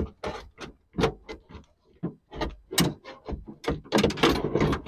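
Door lock actuator being jiggled and worked out through the inside of a car door: a run of irregular knocks, clicks and scraping against the door's inner panel, busiest near the end.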